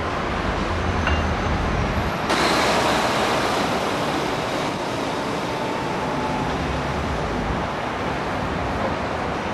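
Steady city street traffic noise, turning louder and hissier about two seconds in.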